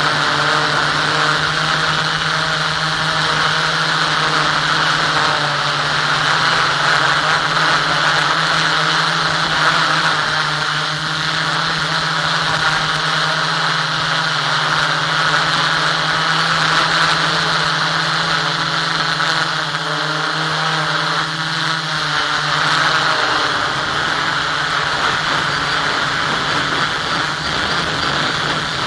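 Motor and propeller of an FPV model aircraft running steadily, heard through its onboard camera with a steady hum over rushing airflow. The hum drops out near the end while the rushing noise carries on, as the aircraft comes down close to the ground.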